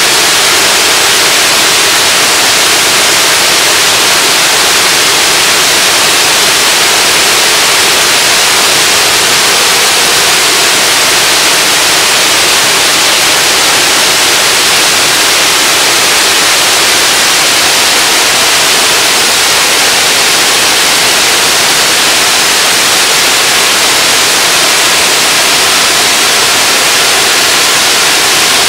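Waterfall pouring over a rock ledge: a loud, steady, hissing rush of falling water that does not change.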